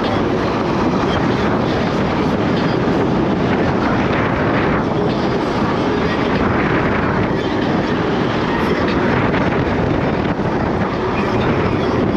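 Yume Hawk Pro 60-volt electric scooter riding along at speed: a steady, loud rush of wind on the camera microphone mixed with tyre and road noise.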